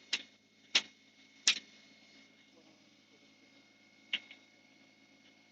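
Four sharp clicks, three in quick succession in the first second and a half and a single one about four seconds in, over a faint steady hum.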